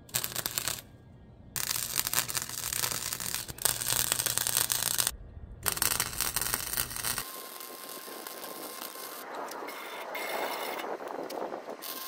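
Electric arc welding on the sheet-metal cab of a 1948 Willys truck: three bursts of crackling arc, a short one, then about three and a half seconds, then about a second and a half, with a low hum under them. After that a quieter, steadier rough noise runs on.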